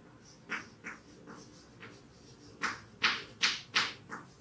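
Chalk writing on a blackboard: about eight short scratchy strokes, faint at first and louder in the second half.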